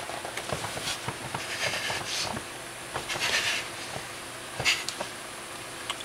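Soft breathy hisses, a few times, among small clicks and rustles.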